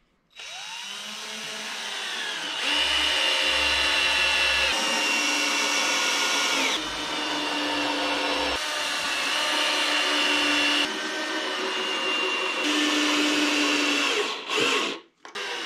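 Cordless drill running in long runs under load, working into a timber beam at the feet of an old cast-iron lathe bed. It winds up at the start, its pitch shifts abruptly a few times, and it stops near the end after one short final burst.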